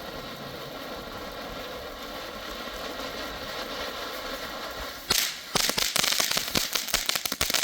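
A consumer firework burning with a steady hiss, then breaking into rapid, dense crackling pops about five seconds in that keep going to the end.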